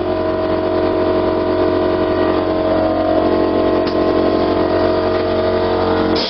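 Electric air compressor running steadily as it pumps the ROV hull up to 7 bar for a pressure test, then cut off suddenly at the end.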